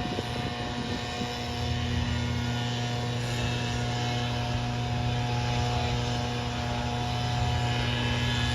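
Cessna 208B Grand Caravan's PT6A turboprop and propeller running, a steady low drone with even tones held above it.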